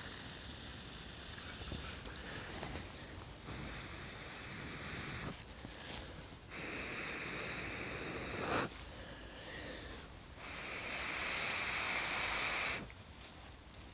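A person blowing into a smouldering tinder nest of dry grass to fan it into flame: three long, even breaths of about two seconds each, with short pauses between them.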